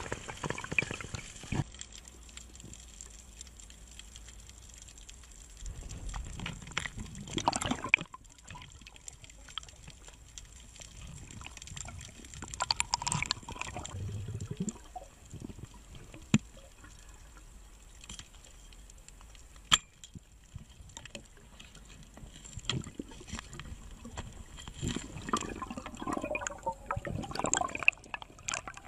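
Underwater sound heard through an action camera's housing: muffled water movement and bubbling as a diver works, with scattered sharp clicks and knocks and a few louder stretches.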